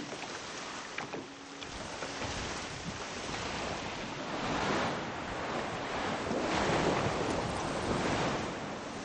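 Water splashing and churning as a great white shark thrashes at a baited rope at the surface, growing louder about halfway through, with wind on the microphone.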